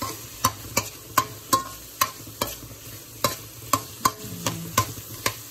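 Metal spoon scraping and clinking against a metal frying pan, about two to three strokes a second, as shrimp are stirred while sautéing, over a steady light sizzle of frying.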